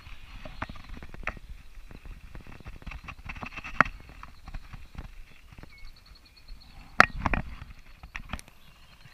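Scattered irregular knocks and clicks, with a sharp knock about four seconds in and a cluster of louder knocks around seven seconds in.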